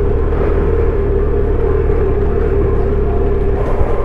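Motorcycle engine running steadily with a low rumble, as heard while riding.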